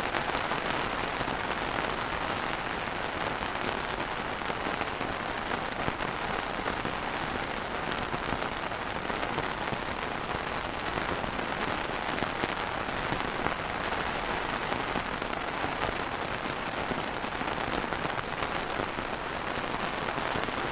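Steady rain falling on a surface, an even hiss of many drops with no thunder.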